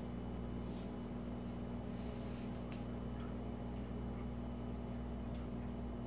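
Jenn-Air dishwasher running its rinse-only cycle: a steady motor and pump hum, with a few faint ticks.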